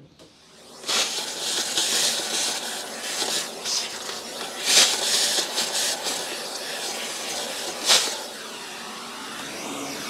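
Central vacuum hose sucking at its nozzle, switching on about a second in and giving a steady rushing hiss, with sharper louder surges around five and eight seconds in, as it pulls dust buildup out of an upright vacuum's base.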